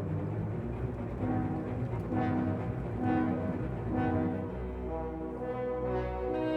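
Background orchestral music, brass notes over a low sustained chord.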